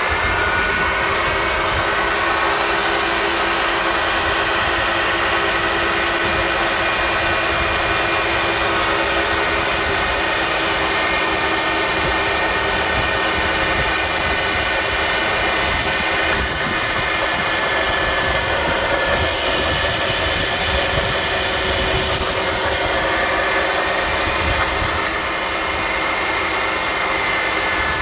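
Sharp LMV-50 vertical milling machine running with its spindle at speed: a steady motor and spindle hum made of several constant tones.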